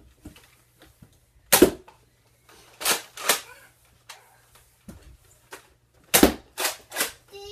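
Nerf foam-dart blasters firing, sharp pops and smacks: one about a second and a half in, a pair near three seconds, and three in quick succession near the end.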